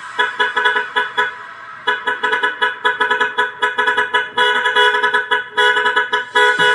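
Dance track intro built from a truck-horn sample honked in quick rhythmic stabs, with a short pause a little over a second in.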